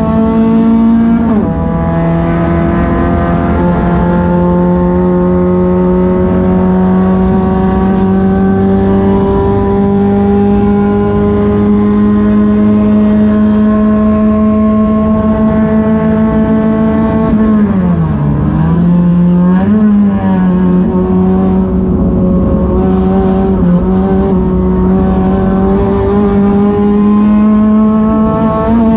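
Race car engine heard from inside the cockpit, running hard under load. About a second in its pitch drops sharply at a gear change, then climbs slowly for a long stretch; around two-thirds of the way through the revs dip and come back before it pulls steadily again.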